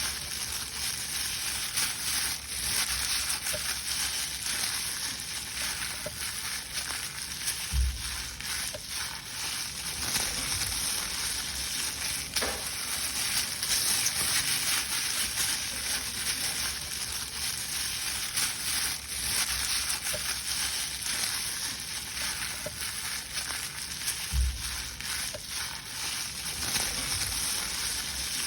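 Paper being crushed and crumpled in the hands: a continuous dense crackling and rustling, with two dull low thumps, one about a third of the way in and one near the end.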